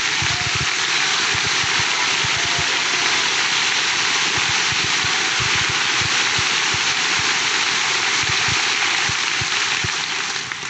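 A large congregation applauding: steady applause from many hands, dying down near the end.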